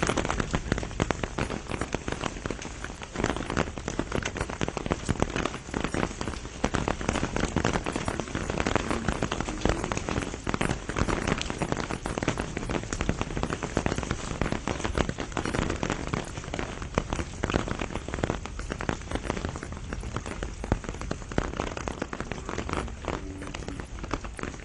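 Steady rain falling, with dense, irregular patter of individual drops close by.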